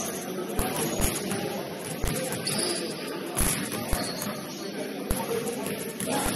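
Basketball game on a gym court: a ball thumping on the floor every second or so, irregularly, with a couple of short sneaker squeaks over steady background noise.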